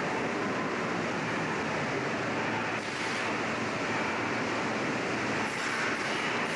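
Steady noisy din of a large locomotive repair shop, with a few brief higher hisses about three seconds in and again near the end.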